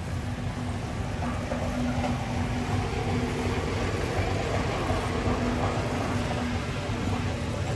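Steady low rumble of a large warehouse store's background noise, with a faint hum that comes and goes.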